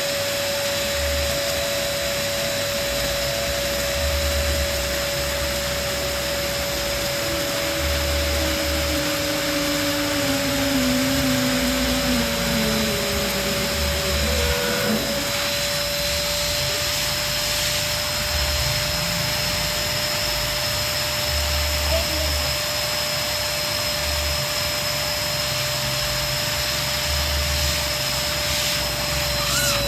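Electric balloon pump running steadily, its motor giving a constant whine over the rush of air it blows.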